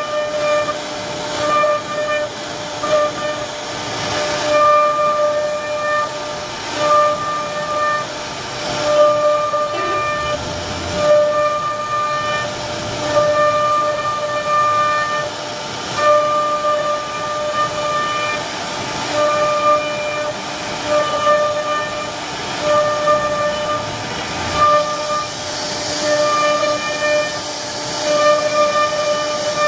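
CNC router spindle whining at a steady pitch while its bit carves a relief pattern into a wooden board, the whine briefly dropping out again and again, with the rasp of cutting swelling and easing in short surges.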